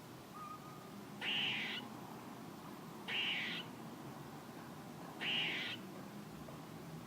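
Squirrel calling: three harsh, raspy calls of about half a second each, spaced about two seconds apart.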